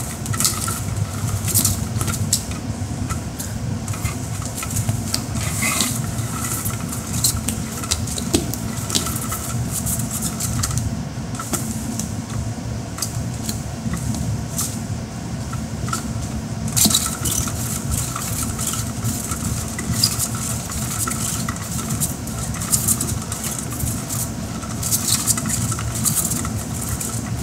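A small motorized cat toy running with a steady low hum, with irregular light clicks and clatter throughout.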